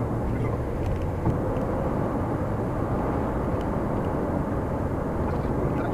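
Steady road noise inside a moving 2011 VW Touran 1.2 TSI's cabin, recorded by a dashboard camera: tyre rumble and a low engine hum with a few faint ticks.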